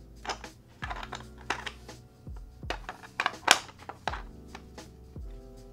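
3D-printed plastic puzzle pieces clicking and clacking as they are slid and pressed into a plastic tray, in irregular taps, with the sharpest click about three and a half seconds in. Soft background music plays underneath.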